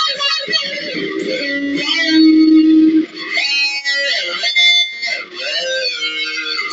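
Electric guitar solo played fast: quick repeated notes at first, then a loud held note about two seconds in, followed by bent notes and rapid runs.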